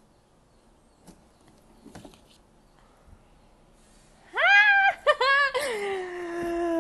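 A woman's high-pitched squeals of delight: a held squeal about two-thirds of the way in, two short yelps, then a long squeal that slides down in pitch. Before it come a few faint taps of the box being handled.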